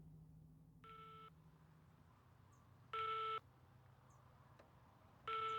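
Mobile phone beeping: three short electronic tones about two seconds apart, the first fainter than the other two, as a call comes through.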